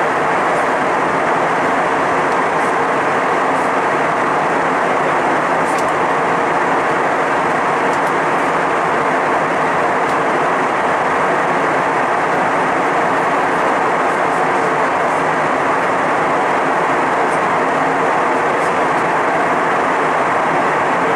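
Steady cabin noise of a jet airliner in cruise: an even, unbroken rush of airflow and engine noise heard from inside the passenger cabin.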